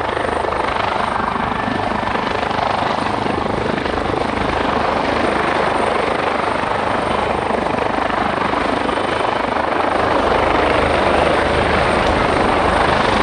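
Helicopter flying, a steady loud rotor and turbine noise that grows a little louder near the end.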